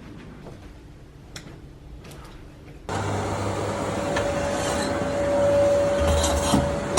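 A few faint clicks, then about three seconds in a power tool starts abruptly and runs loud and steady with a whine, cutting through a wall.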